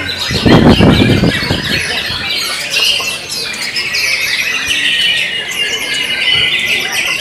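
White-rumped shamas singing together in a songbird contest, a dense, unbroken mix of quick whistles and chattering phrases. A brief burst of loud low noise comes about a second in.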